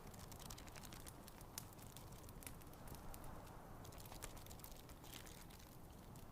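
Wood fire crackling in a fireplace: irregular small pops and snaps over a faint, steady low rumble.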